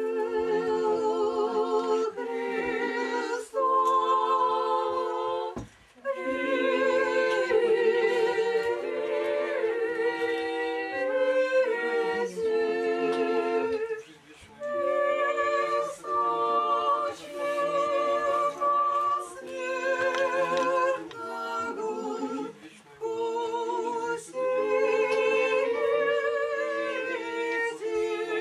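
Unaccompanied singing of an Orthodox church chant: long held notes with a slight waver, in phrases broken by short pauses.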